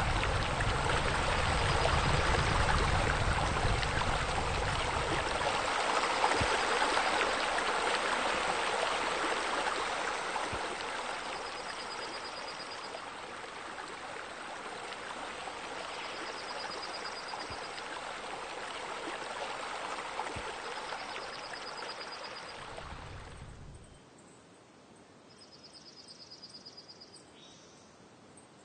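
Steady running and splashing water from pool fountains and spillways, fuller at first and then easing, stopping abruptly about 24 seconds in. A short, high chirping trill repeats every few seconds over the water and is heard once more on its own near the end.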